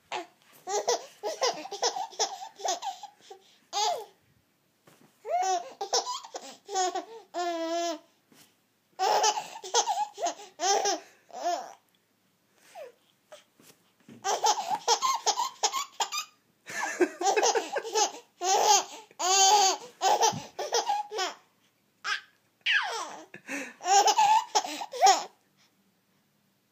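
A baby laughing in about six fits of rapid, high-pitched giggles, separated by short pauses.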